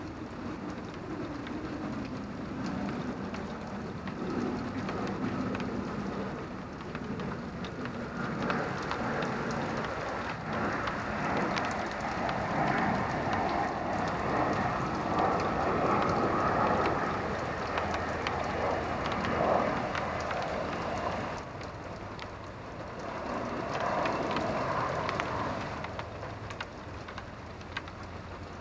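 Rain falling steadily, with many separate drops ticking on a hard surface. It swells louder through the middle of the stretch and again briefly near the end.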